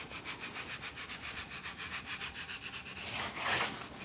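Curing salt shaken from a small plastic container onto a pork belly on a metal sheet pan: a fast, even, grainy hiss of about seven shakes a second, with a louder, longer pour about three seconds in.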